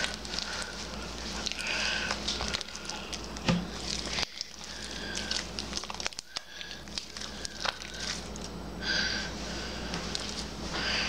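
Hands kneading and stretching sticky liquid-starch slime, which gives many small irregular crackling clicks and pops.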